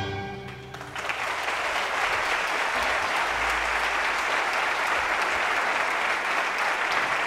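The last chord of a string orchestra fades away in the first second, then an audience breaks into steady applause.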